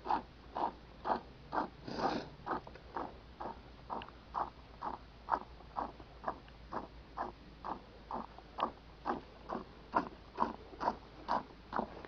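Camel being milked by hand into a tin can: squirts of milk hit the frothy milk in the can in a steady rhythm, about two a second.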